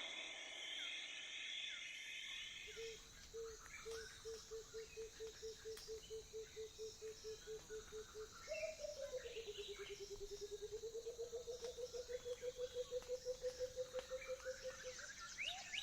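A night animal's call: a steady string of short low notes, about three a second. Then comes a faster trill that dips in pitch and rises back before stopping near the end. It sits over a steady high insect drone.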